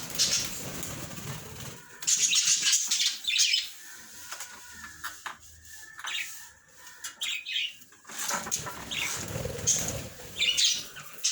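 Budgerigars flapping their wings in flight, in two spells of fluttering about two seconds long, one at the start and one about two-thirds through, with high budgie chirps in between.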